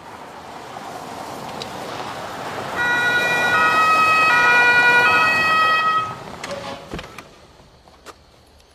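Police car pulling up with its German two-tone siren (Martinshorn) sounding, the two pitches alternating several times for about three seconds before it cuts off abruptly. A few short knocks follow near the end.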